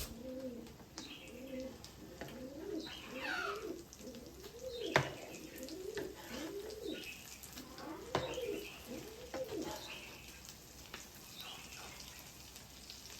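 Dove cooing over and over, a run of low coos that rise and fall, through most of the stretch, with a few higher chirps and two sharp knocks about five and eight seconds in.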